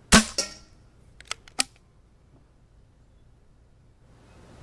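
A single shot from a Nelson pump-action paintball gun, a sharp CO2 pop followed by a second, weaker crack a quarter second later. About a second later come three or four quick mechanical clicks as the pump is worked back and forth to cock it for the next shot.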